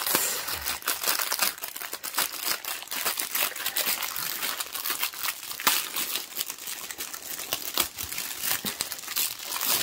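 Clear plastic crinkling and crackling as it is handled: the protective film over a diamond-painting canvas and small plastic bags of square resin drills.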